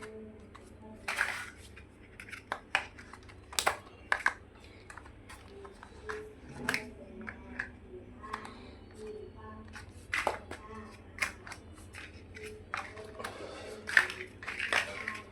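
Plastic building-block pieces clicking and tapping as they are handled and snapped together, in irregular sharp clicks.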